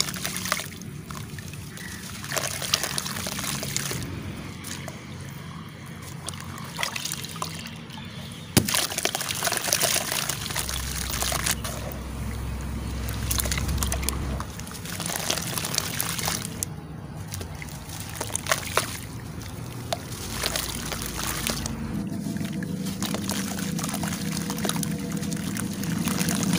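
Soft charcoal-clay chunks being squeezed and crumbled by hand in a tub of water: continuous sloshing and splashing, with wet gritty crumbling and small sharp clicks, one louder click about a third of the way in.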